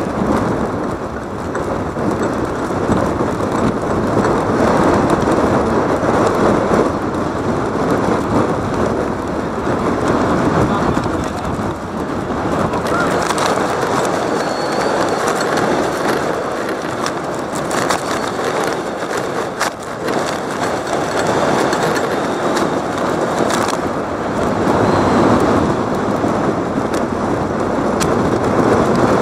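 Game noise: a steady hubbub from a crowd, with scattered sharp knocks and a couple of brief high squeaks.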